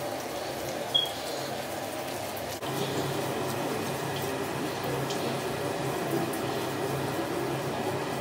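Facial cleansing brush scrubbing wet skin: a steady wet, squishy rubbing, with a short sharp click about a second in and a step louder after about two and a half seconds.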